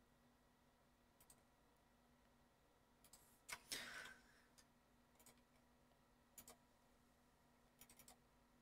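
Faint computer mouse clicks, a few scattered single clicks and a quick cluster near the end, against near silence with a faint steady hum. About three and a half seconds in there is a brief soft noise.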